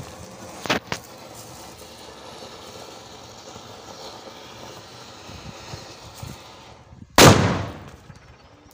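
Anar fountain firecracker burning under a TV panel with a steady spray of noise, two sharp cracks about a second in, then a single loud bang about seven seconds in that dies away over about a second.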